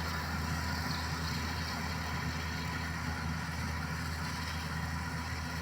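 Rice-harvesting machine's engine running steadily, a constant low hum with a mechanical hiss over it.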